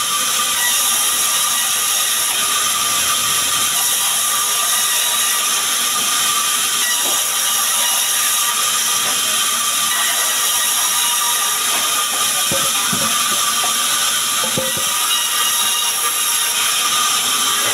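Sawmill band saw running steadily while a small sengon log is fed through it lengthwise. It makes a loud, even, high-pitched cutting noise, with a few dull knocks about two-thirds of the way through.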